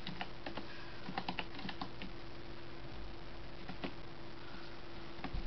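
Computer keyboard being typed on, with irregular keystroke clicks that come in quick clusters over the first two seconds and then thin out to a few single taps. A faint steady hum runs underneath.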